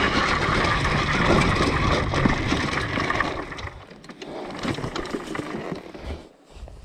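Dirt bike running loud, then falling away about three and a half seconds in, leaving scattered clicks and crunches.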